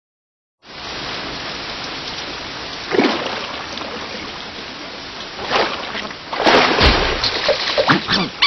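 Steady rain falling, starting abruptly about half a second in, with louder splashy drops on top: one about three seconds in and several more in the last few seconds.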